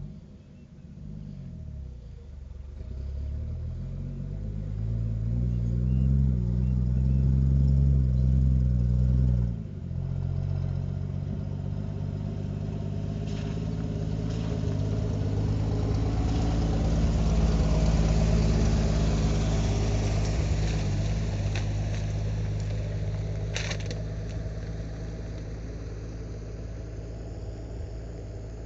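A motor vehicle engine running close by, its hum rising and falling in pitch before cutting off abruptly about ten seconds in. A broader engine rumble then swells to a peak and slowly fades.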